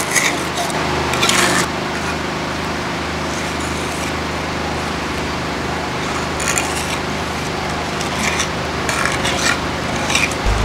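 Small steel trowel scraping and smoothing wet cement on a stove top, in short scraping strokes at irregular intervals over a steady low hum.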